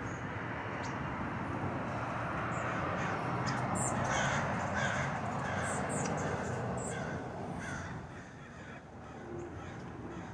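Crows cawing: a run of short, harsh calls repeated from about three and a half to eight seconds in, over a steady background hiss that drops away near the end.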